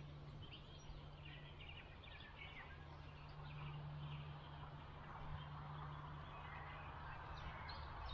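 Faint chirping of small birds, short scattered calls over a steady low hum.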